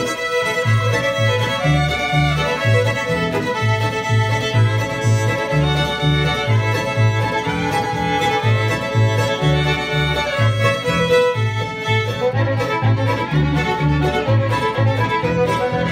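Small acoustic string band playing an instrumental tune: two fiddles carry the melody over a mandolin, with a plucked upright bass keeping a steady beat.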